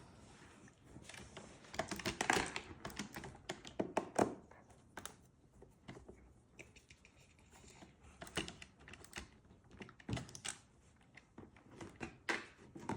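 Irregular light clicks and knocks of plastic parts being handled on a robot vacuum cleaner under repair, clustered about two to four seconds in and again near the end.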